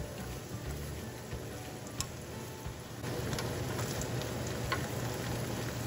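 Chopped vegetables and butter sizzling in a frying pan as a wooden spatula stirs them, with light scrapes of the spatula against the pan. The sizzle gets louder about three seconds in.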